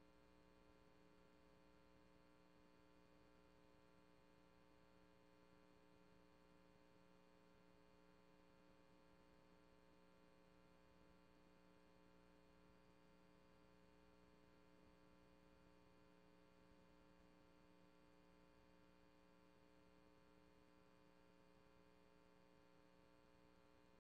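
Near silence: only a faint, steady electrical hum, with no speech on the track.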